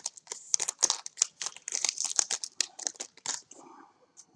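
Trading-card pack wrapper crinkling and rustling in the hands, a fast crackle of many small clicks that thins out about three and a half seconds in.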